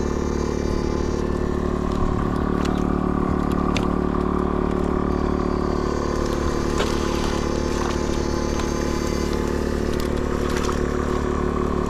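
Battery-powered electrofishing machine (a 22-MOSFET fish shocker) giving a steady electrical buzz, with a faint high whine coming and going and scattered sharp clicks and crackles.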